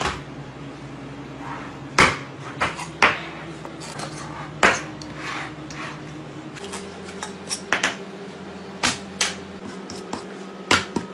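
Knife and whole flatfish knocking and slapping on a plastic cutting board while a fish is butchered: a dozen or so sharp knocks at an uneven pace, over a steady low hum.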